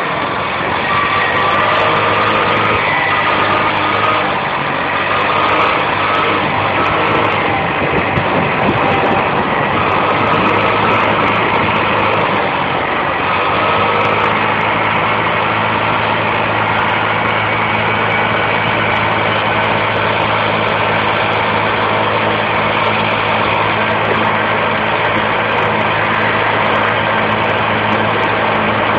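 Motor scooter engine running during a ride. Its pitch shifts over the first dozen seconds, then holds steady.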